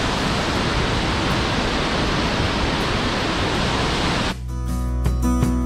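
Burney Falls, a large waterfall, rushing as a steady dense noise. About four seconds in, it cuts off suddenly and background music begins.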